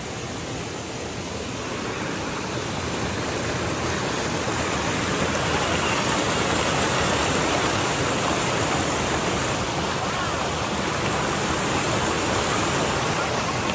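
Water rushing over rocks in a shallow stream below a waterfall: a steady rush that grows a little louder a few seconds in.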